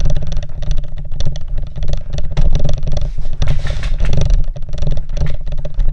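Handling noise on the camera's microphone: a dense low rumble with close-packed knocks, scrapes and clatter as the camera is gripped and moved.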